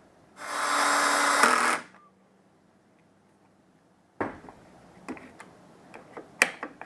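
Power drill driving a screw, running in one burst of about a second and a half to fasten the piece instead of gluing it. Light clicks and knocks of parts being handled follow a few seconds later.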